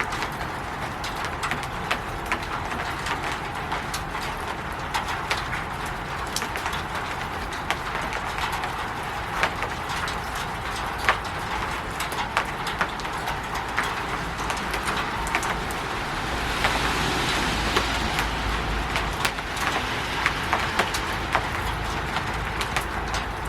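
Rain falling on a roof: a steady hiss with irregular sharp taps of single drops striking, swelling louder for a few seconds about two-thirds of the way in.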